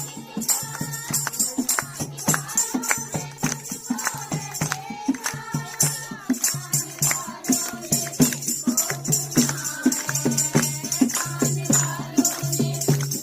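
Hindu devotional bhajan: voices singing to a fast, steady beat of hand percussion with jingling metal, over a steady low drone.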